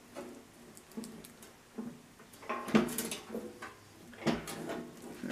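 Bead roller being worked along a large aluminum sheet: a series of irregular clunks and scrapes of the tool and the sheet metal, the loudest about three seconds in and another a little past four seconds.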